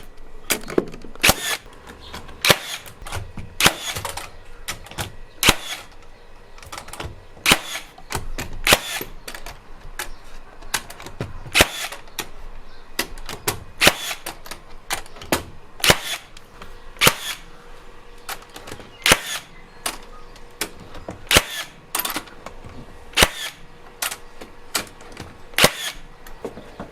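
A HiKOKI NR3665DA 36V gasless metal connector nailer firing nail after nail through steel connector plates. Each shot is a sharp crack, coming about once a second at an uneven pace, sometimes two in quick succession.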